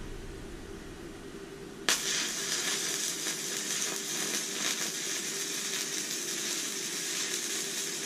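Stick-welding arc struck suddenly about two seconds in, then a steady crackling sizzle as a 3/32-inch E7018 rod burns on a DC inverter welder, laying a fill bead.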